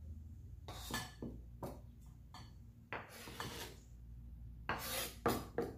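Santoku-style kitchen knife blade scraping diced tomato across a wooden cutting board and onto a plate. A series of short scrapes, with a longer sweep about three seconds in and the loudest strokes near the end.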